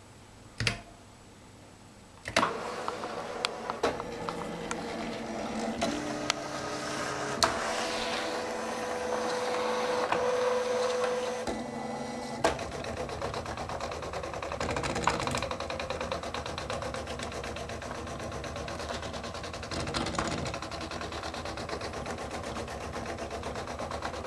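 XY4160 pen plotter drawing: a mechanical whirring with shifting pitch as the pen carriage and arm move, broken by sharp clicks. It starts with a click about two seconds in.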